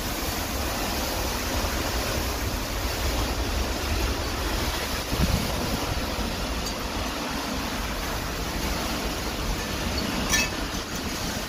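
Heavy rain pouring down in a windstorm: a steady rushing hiss, with gusts buffeting the microphone and swelling briefly about five seconds in. Near the end there is a short sharp clink.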